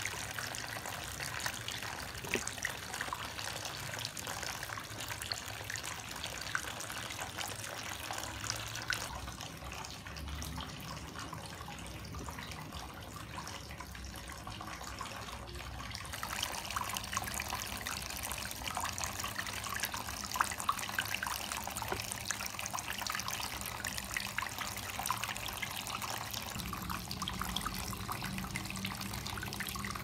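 Homemade plastic-bottle fountain running: thin streams of water from straw spouts splashing and trickling steadily into a water-filled plastic basin, with many small drop splashes. It gets a little louder about halfway through.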